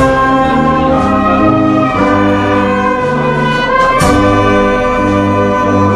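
Brass band of trombone, trumpets and saxophone playing held chords that change about once a second.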